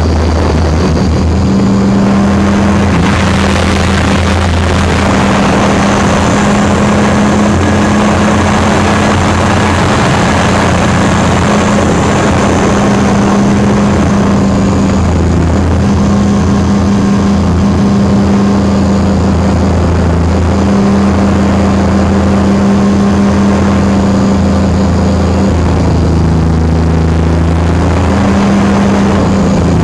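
T-Rex 500 RC helicopter in flight, heard close up from the camera mounted on it: a loud, steady drone from the motor and main rotor. The hum shifts slightly in pitch a few times, over a rush of air noise.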